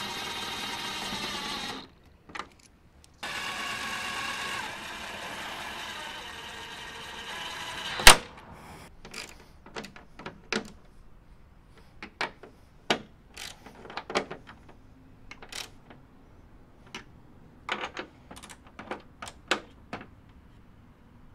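DeWalt cordless impact driver running a bolt into the grille surround in two runs of a few seconds each, then a sharp click, followed by a hand ratchet clicking in short strokes as the bolt is finished by hand.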